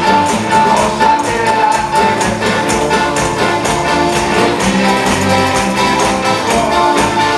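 Live worship band of electric guitars, bass and keyboard playing an upbeat song, with handheld tambourines shaken and struck in time with the beat.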